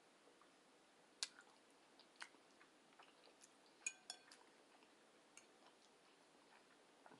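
Quiet eating: scattered sharp clicks and clinks of an eating utensil against a dish, the loudest about a second in and a pair with a short ring near four seconds in, between faint chewing.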